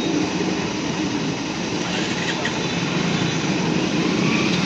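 Passenger train coaches rolling past close by: a steady rumble of wheels on the rails.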